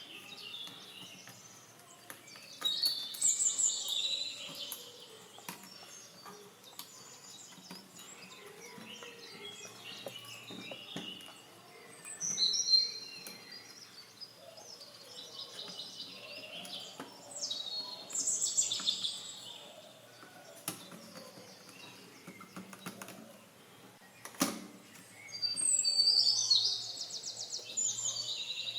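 Songbirds chirping in repeated short trilled phrases, with scattered faint clicks and one sharp knock a few seconds before the end.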